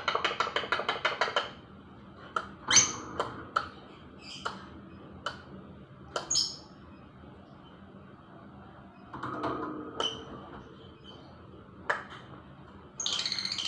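Pet lovebird chirping and chattering: a fast rattling run of notes at the start, scattered short sharp chirps, another burst a little past nine seconds, then a loud, high, unbroken trill near the end.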